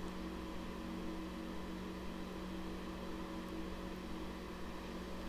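Steady background hum with a few faint steady tones: room noise, with nothing else happening.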